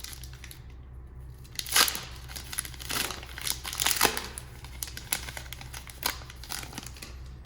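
Trading card pack wrapper being torn open and crinkled by hand, in irregular crackles with louder tears about two and four seconds in, over a faint low hum.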